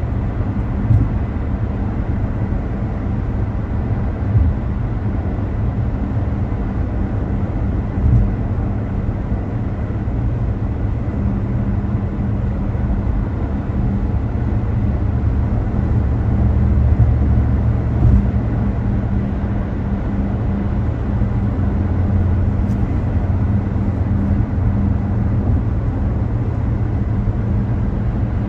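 Car driving along: steady low road and engine rumble with a faint steady hum, and a few brief thumps.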